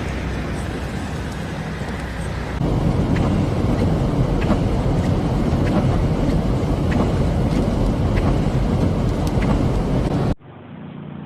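Gusting storm wind rumbling hard on the microphone, with a few faint ticks, growing louder about two and a half seconds in. Near the end it cuts abruptly to a quieter, steady low hum.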